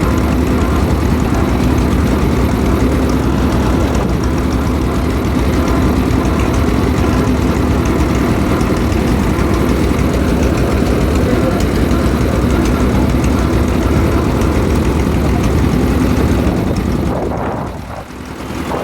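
An engine running steadily with a low rumble, dipping briefly near the end.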